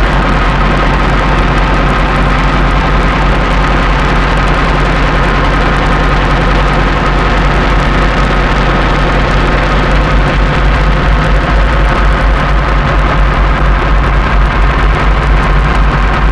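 Drone and noise from a Lira-8 software synthesizer, modelled on the Soma Lyra-8: dense layered tones held steady over a heavy low hum, with a hiss of noise on top. About ten seconds in, the low end begins to pulse rapidly.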